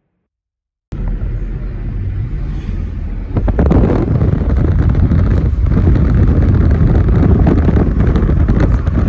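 Car on the move: a loud, steady rumble of engine, tyre and wind noise that starts abruptly about a second in and grows louder about three and a half seconds in.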